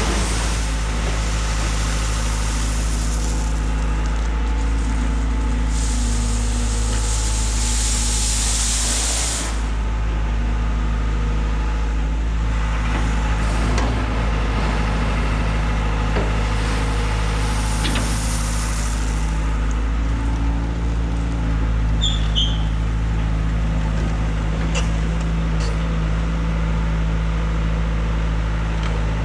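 Diesel engine of a heavy construction machine running steadily, with several stretches of hiss lasting a few seconds each.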